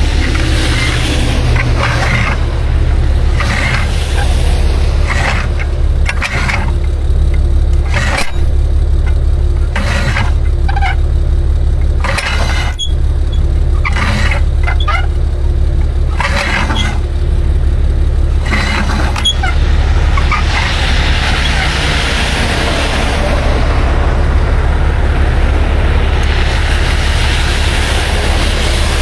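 Tow truck's engine running steadily with a deep rumble, overlaid by irregular short bursts of noise, and a broader rushing noise in the last third.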